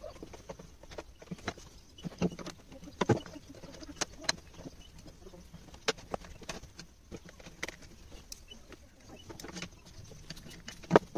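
Scattered clicks and knocks of plastic and metal parts being handled and fitted as a Stihl FS 260 brush cutter's carburettor and air-filter housing is put back together, at irregular times with a sharper knock near the end.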